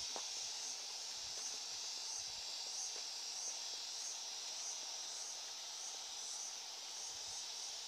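Steady high-pitched insect chorus with a faint pulsing about three times a second.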